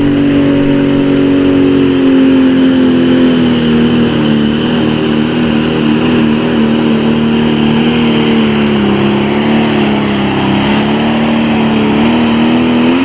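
Super Farm class John Deere pulling tractor's diesel engine running flat out under load, a loud, steady drone whose pitch sags a little after the middle and climbs again near the end.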